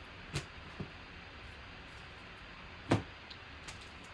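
Trading cards being handled, with a few light clicks and one sharp knock about three seconds in, over a steady background hiss.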